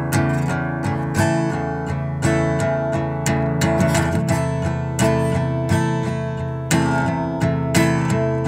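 Instrumental passage of an indie-pop song led by acoustic guitar: strummed chords about once a second with picked notes between, no singing.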